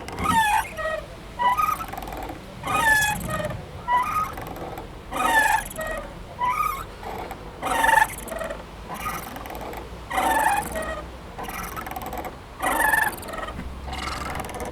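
Playground swing squeaking rhythmically as it swings back and forth, a short gliding squeak about every second and a quarter.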